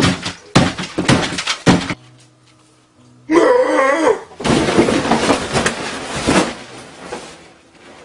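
Several sharp crashes and clattering, like things breaking, then a short warbling cry and a noisy rush, over faint background music.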